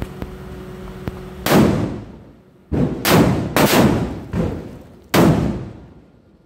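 Firecrackers going off one at a time: about five loud, sharp bangs at uneven intervals starting about a second and a half in, each followed by an echoing tail.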